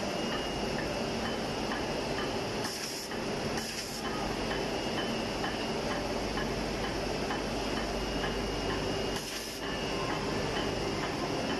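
Sanitary pad making machine running: a steady mechanical hum and clatter with a fast, regular ticking. Short hisses of air cut in three times, near 3 s, 4 s and 9 s.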